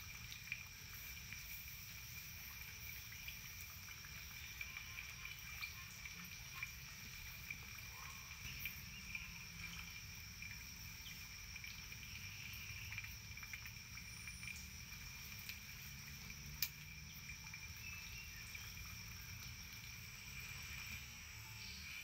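Steady insect drone: two high-pitched tones that hold without a break, with a low rumble underneath. Scattered small ticks, and one sharper click about three-quarters of the way through.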